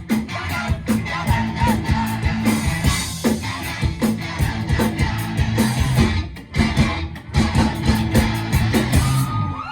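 Live rock band playing the final bars of a song, with drums and electric guitar, a brief drop about six and a half seconds in, and the music stopping abruptly just before the end.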